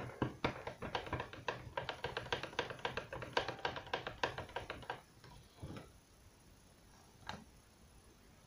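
Stick stirring thick paint in a small paint pot, knocking and scraping against the pot's sides in rapid, irregular taps. The stirring stops after about five seconds, followed by a couple of single knocks.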